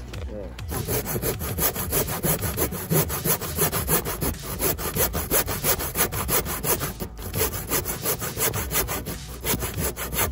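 Rapid, even rasping strokes, several a second, with a sawing, scraping sound.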